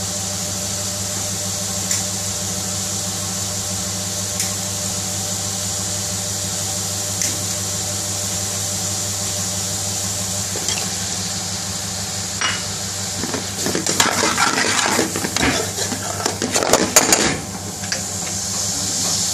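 Curry sauce bubbling in a metal pan over a steady hum and hiss. About two-thirds of the way in comes a few seconds of irregular clattering and scraping as a metal spoon works against the pan while pieces of chicken are added.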